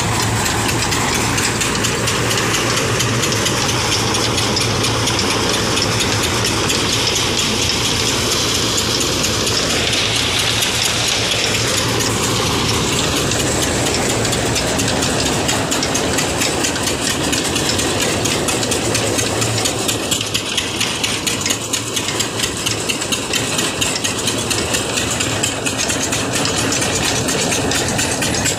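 Engine-driven groundnut thresher running steadily: a continuous engine drone with a fast, even mechanical beat.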